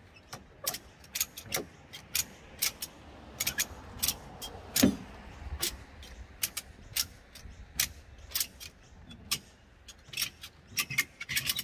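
Ratchet tie-down strap being cranked tight: a run of sharp metallic clicks from the ratchet buckle as the strap is tensioned, coming in quick bursts, with one louder clack near the middle.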